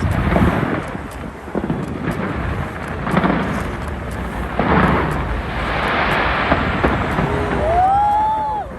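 Fireworks going off in quick succession: a continuous rolling rumble, with heavy booms near the start, about three seconds in and about five seconds in. A high whistling tone rises and then holds near the end.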